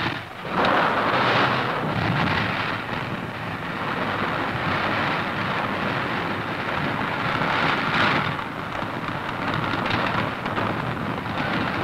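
A large demolition blast at the water's edge: a sudden bang, then a long, dense rumble as the plumes of water and rock rise and fall back, swelling again about eight seconds in.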